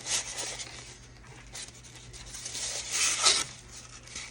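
Rustling and handling noises of items and packaging being moved in an unboxing, with a short burst at the start and a louder one about three seconds in.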